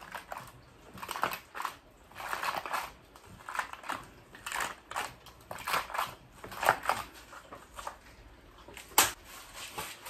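A 288-cell plastic plug tray pressed down by hand, again and again, into a second tray of seed-starting soil, packing the soil into the cells: a run of short, uneven plastic-and-soil crunches. A sharp click near the end.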